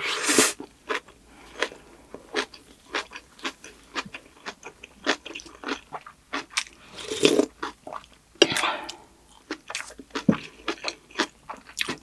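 Close-miked chewing of crunchy kimchi, with a steady run of sharp, wet crunches at two or three a second and a few louder bites.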